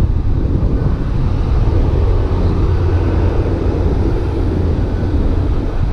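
Wind buffeting the microphone: a steady, ragged low rumble.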